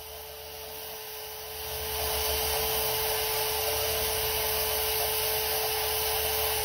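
Portable band saw running with a steady whine as it cuts through a truck's steel axle spindle, getting louder about two seconds in. The old spindle is being cut off for replacement after its inside wheel bearing seized.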